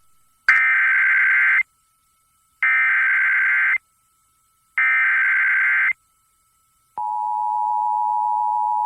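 Emergency Alert System SAME header: three bursts of warbling digital data tones, each about a second long, encoding a Child Abduction Emergency (Amber Alert). About seven seconds in comes the steady two-tone EAS attention signal.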